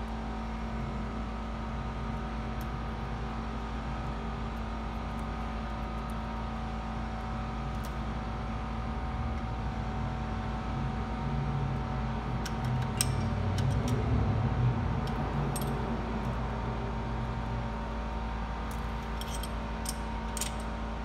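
Light metallic clicks of hand tools and a feeler gauge on the valve rocker arms of a stopped engine during valve-clearance adjustment, a few scattered clicks in the second half, over a steady hum.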